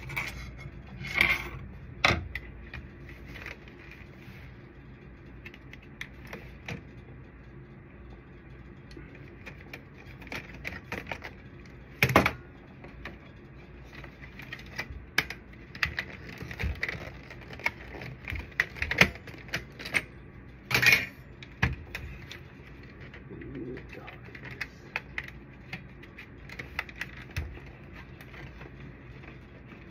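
Hands handling a copier photoconductor drum unit's plastic housing on a padded table: scattered clicks, taps and knocks, a few of them louder.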